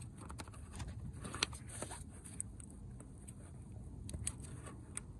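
Faint, scattered clicks and scrapes of a flat screwdriver prying at the plastic electrical connector of an engine's intake camshaft position sensor to release its lock. The sharpest click comes about a second and a half in, with a few more near the end.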